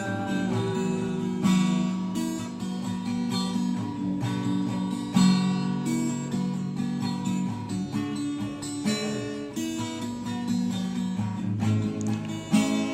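Acoustic guitar strummed in chords, an instrumental passage with no singing.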